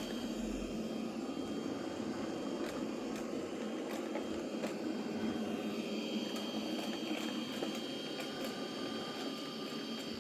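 Roborock Saros Z70 robot vacuum running: a steady whir of its suction fan and brushes, with a thin steady high whine and a few light ticks.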